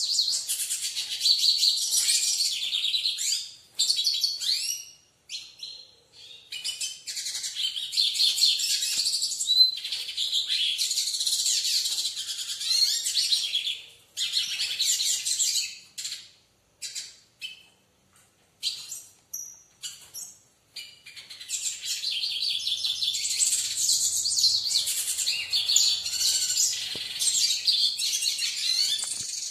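Caged hooded siskin singing: long runs of rapid, high twittering song, with a stretch of short scattered chirps and pauses in the middle.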